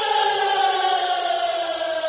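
Hockey goal horn winding down like a siren: one pitched tone with overtones sliding steadily lower and fading.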